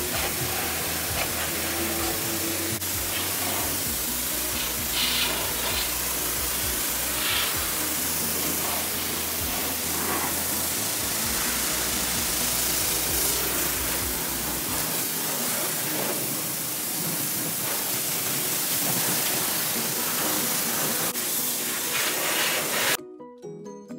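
High-pressure rinse wand at a self-serve car wash spraying water onto a pickup truck, a steady loud hiss of spray rinsing off the foam. About 23 s in it cuts off suddenly and music takes over.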